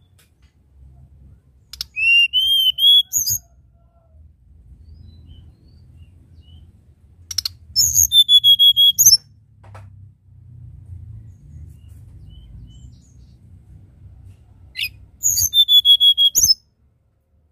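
Hill blue flycatcher singing three short phrases of clear, high whistled notes, each about a second and a half long and some six seconds apart.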